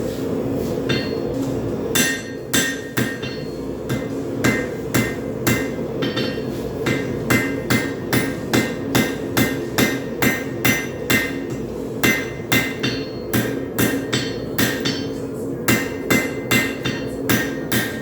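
Hand hammer striking a hot railroad spike on an anvil, forging the knife blade: ringing blows at about two a second, starting about two seconds in. A steady drone runs underneath.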